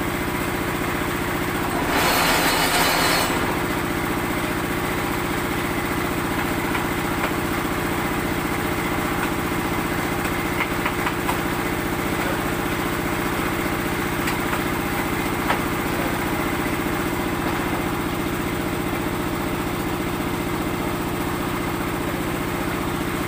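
Small stationary engine running steadily, driving a concrete mixer and block-making machine. About two seconds in, a louder rushing noise lasts roughly a second and a half, and a few light knocks follow later.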